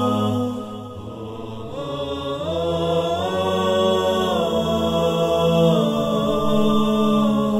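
Vocal chant music with long held notes over a low drone. The melody rises in steps about two to three seconds in and falls back near six seconds.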